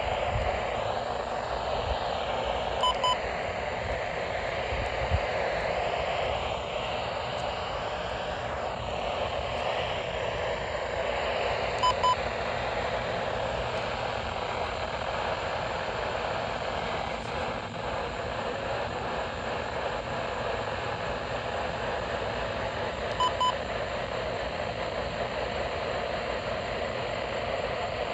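Steady rushing noise with a short, high double beep three times, roughly ten seconds apart.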